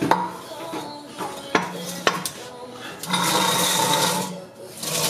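A handheld cordless power tool running in several short bursts, the longest about a second, turning out the exhaust Y-pipe bolts, with a few sharp metal clicks between the bursts.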